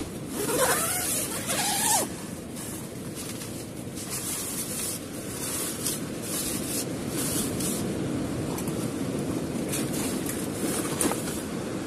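Tent door zipper drawn open in about the first two seconds, its pitch sweeping up and down. Then the nylon tent fabric rustles as a backpack is pushed into the doorway, over steady surf and wind noise.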